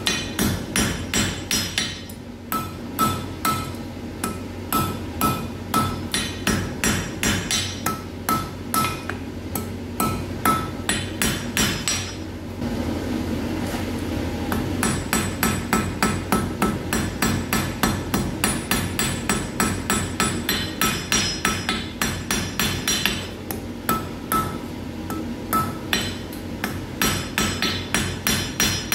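Hand hammer striking red-hot iron on an anvil in steady blows, about two to three a second, each with a bright metallic ring from the anvil. The blows stop for a couple of seconds about halfway through, then resume.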